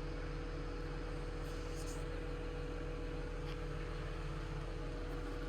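Steady idling engine hum heard from inside a vehicle cab: a low, even rumble with a constant whine over it.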